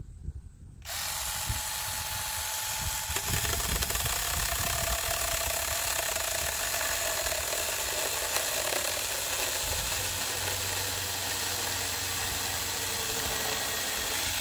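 Saker Mini 4-inch 20V cordless electric chainsaw starting up about a second in and running steadily, its chain cutting through a pressure-treated 2x8 board. The motor's note drops a little a few seconds in as the chain bites into the wood, then holds.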